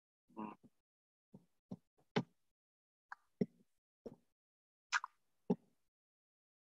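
Scattered faint clicks and pops, about eight at irregular spacing, with a short low murmur just under half a second in.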